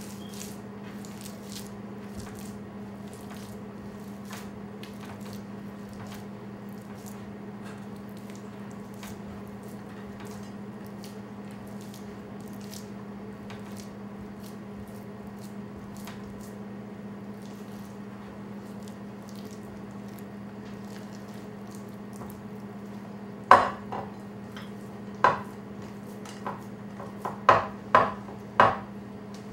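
Hands kneading raw ground meat on a wooden cutting board, faint and squishy, over a steady low hum. Near the end come about six sharp knocks and clinks of dishes and glassware being handled on the table.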